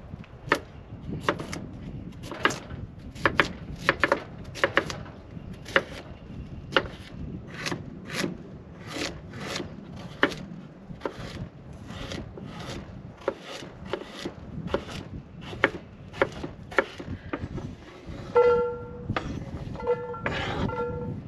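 Chef's knife slicing sweet potato on a wooden cutting board, the blade knocking the board about twice a second. Near the end a short pitched tone sounds twice.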